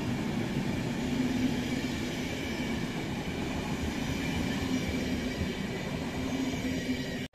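Passenger train coaches rolling past at speed through a station: a steady rumble of wheels on rail with a low hum that swells and eases slightly. The sound stops abruptly at the very end.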